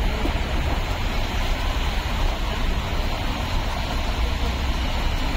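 Steady road traffic noise from cars driving through a flooded, waterlogged road, under a continuous low rumble.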